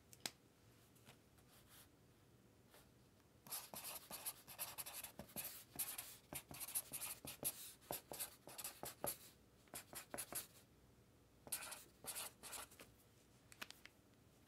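Handwriting with a pen on paper: quick scratchy strokes in a spell of about six seconds starting three and a half seconds in, then a shorter spell near the end, with a single tap just after the start.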